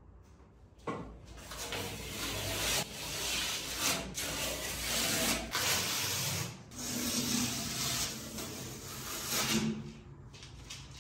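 Rough hand-rubbing strokes on the metal side panel of a gas stove, a run of irregular scraping strokes like sanding. It starts about a second in and dies down near the end.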